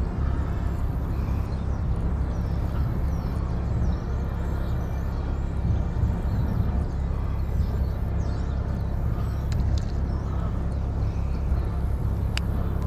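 Steady low outdoor rumble, with a few faint sharp clicks near the end.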